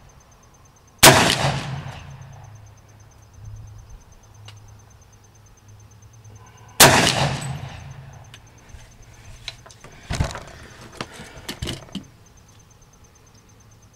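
Two shots from a Hi-Point 4095 .40-caliber carbine, about six seconds apart, each ringing away over about a second. After them come a few seconds of lighter clicks and knocks.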